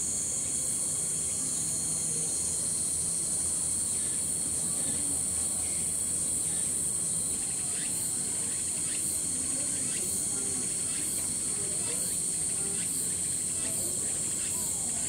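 Autumn cicadas singing in a steady, high-pitched continuous drone. From about halfway, short chirps repeat roughly once a second over it.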